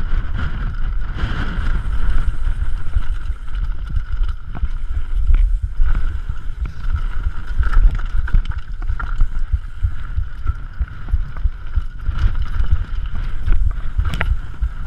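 Downhill mountain bike riding a loose gravel trail: wind buffeting the helmet camera's microphone over the continuous crunch of tyres on gravel, with frequent sharp knocks and rattles from the bike over stones.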